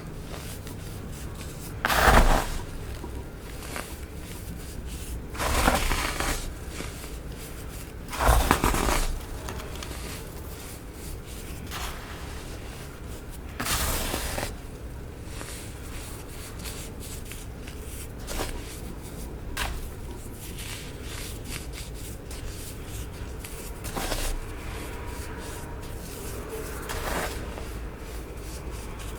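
Compressed baking soda being crushed, giving a soft crunch every few seconds; the loudest crunches come about 2 and 8 seconds in, and fainter ones follow in the second half.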